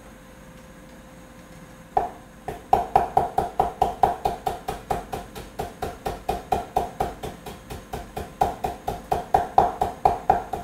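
Chinese cleaver knocking rapidly on a wooden cutting board, about five strokes a second, as it slices ginger into fine shreds; the chopping starts about two seconds in.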